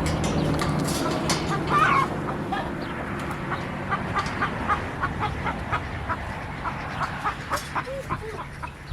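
Chickens clucking, a long run of short repeated clucks with a few louder calls near the start, over a steady low hum.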